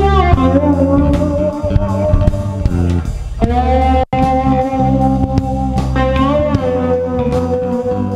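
Background music: an instrumental passage of a guitar-led song, with a brief break in the sound about four seconds in.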